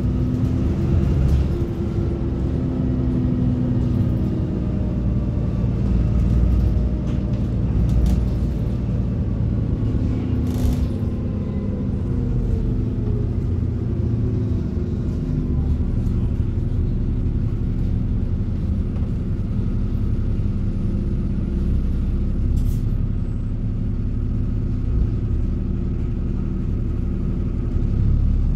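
Diesel bus with a ZF automatic gearbox running on the road, heard on board: a steady engine drone with a whine whose pitch falls over a few seconds about a third of the way in, and a couple of brief hisses.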